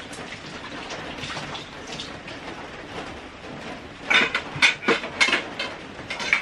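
A small knife cutting cherry tomatoes over a stainless steel pot, faint at first; from about four seconds in, a quick run of sharp, ringing metallic clinks and clatters of steel cookware, a steel lid and pot knocking together.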